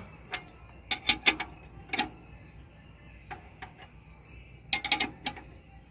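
Sharp metallic clicks and clinks of hand tools working the release-finger adjusters on a finger-type clutch pressure plate as they are tightened: a few single clicks in the first two seconds, then a quick run of clicks near the end.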